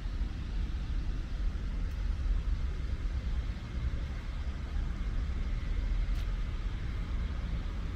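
Steady low rumble of distant city road traffic, with no single vehicle standing out.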